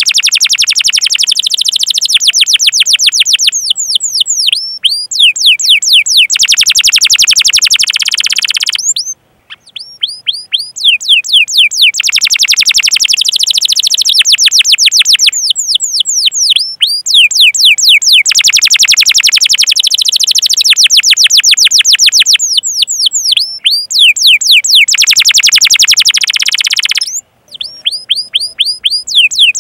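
Domestic canary singing loudly and almost without pause: long rolls of very rapid repeated notes alternating with series of quick falling 'cuit-cuit' chirps, with two short breaks, about nine seconds in and near the end.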